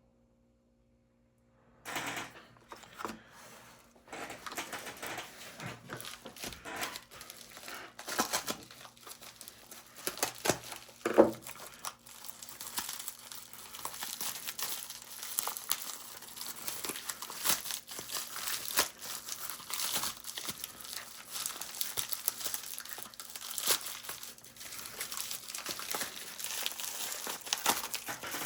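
Packaging being unwrapped by hand: continuous crumpling and crinkling with some tearing and small clicks. A sharper knock comes about eleven seconds in. The first two seconds are nearly silent.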